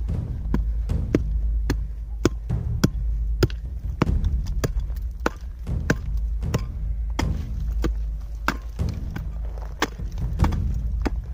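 A small hand pick striking into hard-packed earth, blow after blow at about two a second at an uneven pace.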